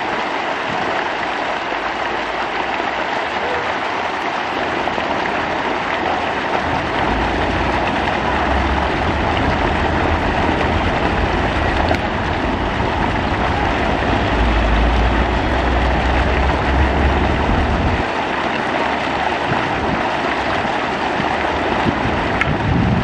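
Steady rush of water churning and foaming as it pours into a pond. A low rumble comes in about seven seconds in and drops out about eighteen seconds in.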